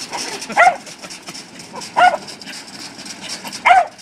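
A dog barking three times, about a second and a half apart, each bark short and dropping in pitch.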